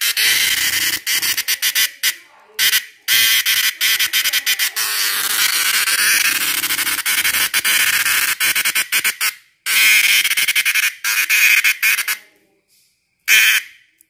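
A large cicada held in the fingers gives a loud, harsh rattling buzz in long stretches broken by short gaps. It stops briefly about ten seconds in, picks up again, and ends with one short burst near the end. This is the protest buzz a cicada makes when it is handled.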